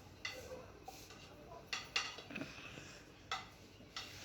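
Metal kitchen utensils clinking against a cooking pot: about five sharp clinks spread out, each with a brief ring.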